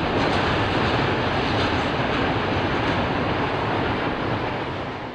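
Long freight train's wagons rumbling along the rails as the train moves away, with faint clicking of wheels over rail joints; the sound dies away near the end.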